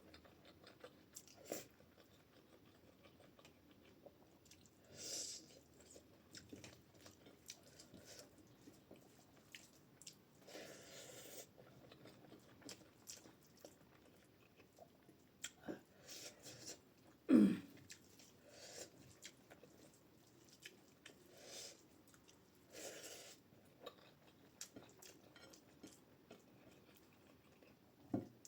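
Close-miked chewing and mouth sounds of someone eating rice with dal and potato curry: soft wet chewing, lip smacks and small clicks scattered irregularly. About two-thirds through there is one brief, louder sound that falls in pitch.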